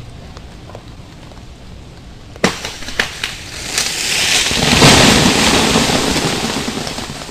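An ice-laden tree limb cracking and crashing down: a sharp crack, a few smaller snaps, then a loud rush of breaking, ice-coated branches that swells and slowly fades, over a steady hiss of freezing rain.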